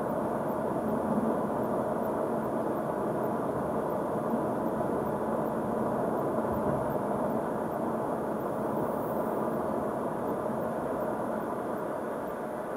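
Steady road and tyre noise with engine hum from a car cruising along a paved country road, heard from inside the car.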